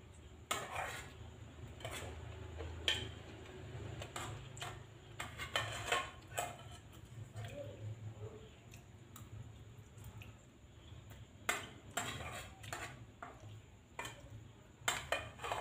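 Metal spoon clinking and scraping against a plate, a dozen or so sharp clicks at irregular intervals, over a steady low hum.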